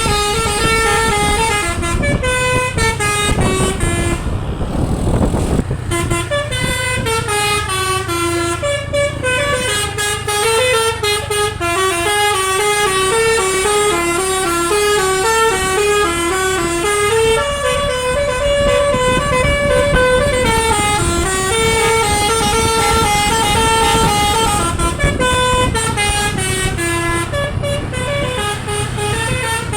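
Bus's Basuri multi-tone telolet air horn played by hand, the notes stepping rapidly up and down in a koplo-style melody, with a steady low rumble underneath.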